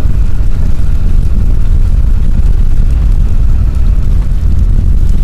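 Steady low rumble of a four-wheel-drive vehicle driving on a packed, icy snow-covered road, heard from inside the cabin.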